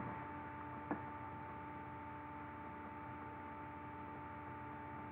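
Steady low electrical hum with hiss from the recording setup, with one faint click about a second in.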